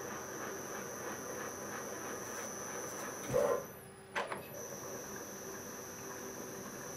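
DIY CNC mill running a rigid-tapping cycle with a spiral-flute tap: steady machine noise with a high whine. About three and a half seconds in there is a short, louder squeal; the whine then drops out briefly, a click follows, and the steady running resumes.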